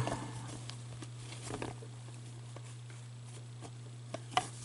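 Faint handling noise: gloved hands rustling in a cloth bag and handling paper cards, with a few soft ticks, the sharpest about four and a half seconds in, over a steady low hum.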